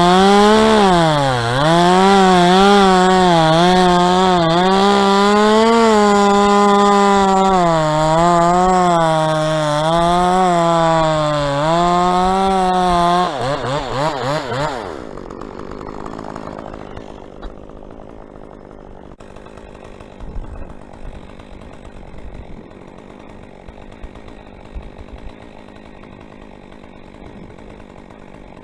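Two-stroke chainsaw running at high revs and cutting into a dead palm, its pitch dipping and recovering under load. About 13 seconds in the engine drops off and fades out, leaving quieter background sound with a few faint knocks.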